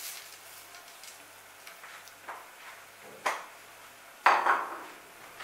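A spoon knocking and scraping against a cooking pot as rice is handled: a sharp clink about three seconds in, then a louder, half-second scrape a second later.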